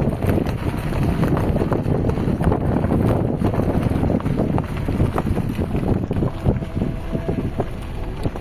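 Heavy wind buffeting the microphone while on the move, over a steady low rumble.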